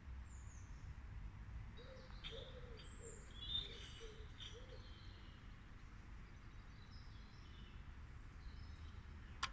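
Faint outdoor birdsong: small birds chirping, with a run of about six short low calls in the middle, over a steady low rumble. A single sharp click just before the end.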